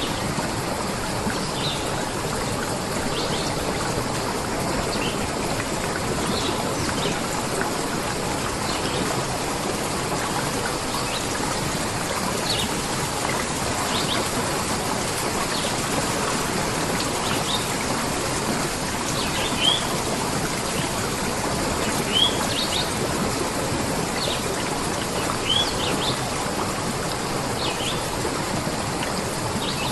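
Steady rush of water, like a stream or rain, with small birds chirping now and then in short single notes scattered throughout.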